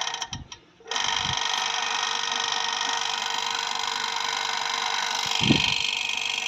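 Electric water pump motor running steadily: a constant hum over an even whirring noise. The sound drops out briefly in the first second, then holds steady.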